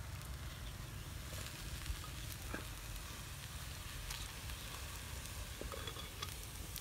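Crackling, sizzle-like rustle of paper and hot salt as a paper-wrapped, salt-baked chicken is unwrapped and lifted out of a clay pot over a wood fire, with scattered small clicks.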